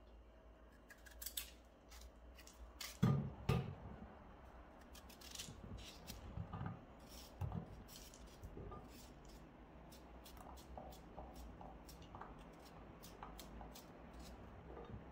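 Kitchen knife cutting through raw peeled potatoes, each cut a crisp click, with small pieces knocking into a ceramic baking dish. Two louder knocks come about three seconds in, and the cuts get quicker in the second half as the potato is cubed.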